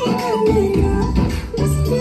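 Loud dance music with a strong beat and a bending melody line.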